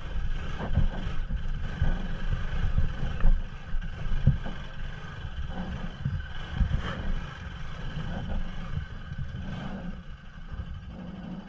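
Bajaj Pulsar NS200 motorcycle's single-cylinder engine running at low revs while the bike rolls slowly over a rough, rocky dirt track. Uneven rumble with scattered knocks and thumps from the suspension and stones.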